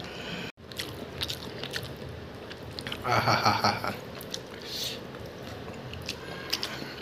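A hand mixing cooked rice and chicken-feet curry on a steel plate: soft squishing of the rice with scattered small clicks against the plate. There is a brief louder sound about three seconds in.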